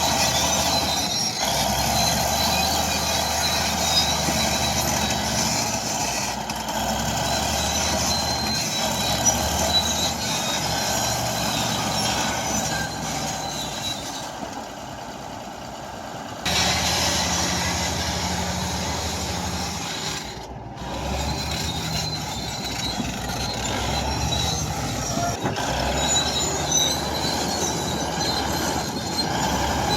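Diesel engines of heavy earth-moving machinery, excavator and bulldozers, running under load in a steady drone, with short high squeaks scattered over it. The sound drops away abruptly about halfway through and comes back about two seconds later.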